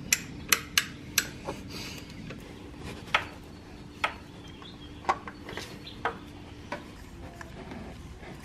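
A string of sharp, irregularly spaced clicks and knocks, about a dozen, over a faint steady hum that stops about seven seconds in.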